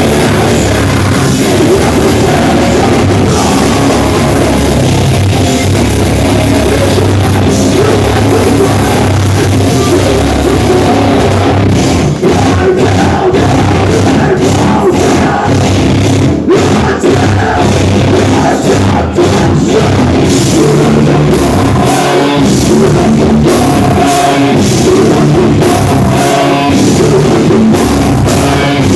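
A heavy metal band playing live at full volume, with distorted guitars and a drum kit; about halfway through the music turns choppy, with short stop-start hits.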